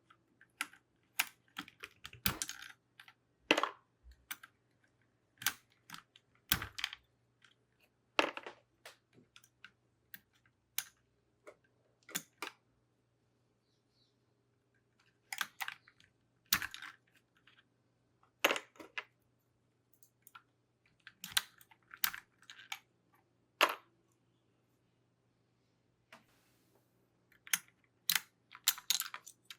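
Keycaps being pulled off a mechanical keyboard: irregular sharp plastic clicks and clacks, some single and some in quick clusters, with short pauses between them.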